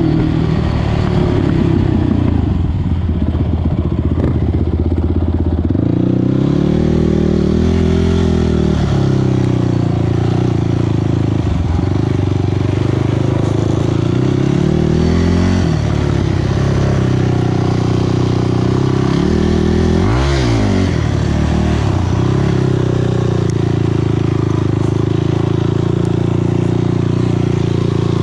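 ATV engine running under way, its revs rising and falling with the throttle several times, with a sharp drop and rise about twenty seconds in.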